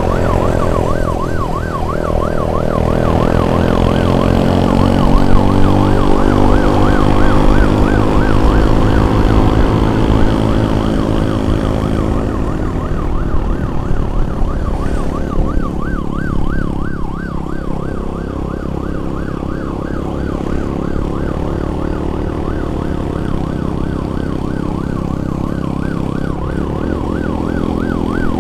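Emergency siren in a fast wavering yelp, with a vehicle engine revving up and down underneath as the ambulance is escorted through traffic.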